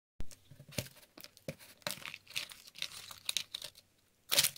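Paper and plastic packaging being torn and peeled off a toy surprise capsule, with irregular crinkling and a louder rip near the end.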